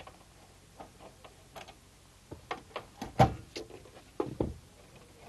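Scattered light clicks and knocks of expansion cards being worked loose and pulled out of their slots inside a PC's metal case, with a louder knock about three seconds in and two more a little after four seconds.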